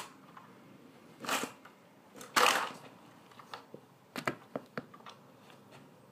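Black high-heeled pumps stepping on and among plastic toy cars and trucks: sharp clicks and cracks of plastic under the heels, two longer clattering bursts about a second and two and a half seconds in, the second the loudest, then a quick run of small clicks a little after four seconds.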